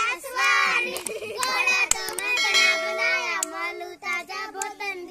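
A group of children singing a Hindi folk song together, breaking into laughter near the end. A bell-like chime, typical of a subscribe-button animation effect, sounds over the singing about two and a half seconds in.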